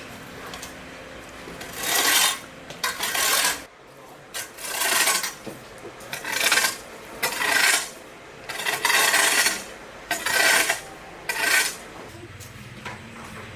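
A series of about eight rough scraping strokes, each lasting under a second, coming at uneven intervals.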